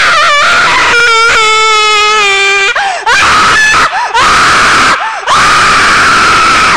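A very loud, distorted scream, the jump-scare sound of a screamer prank. It is held for several seconds, its pitch wavering, and it breaks off briefly three times.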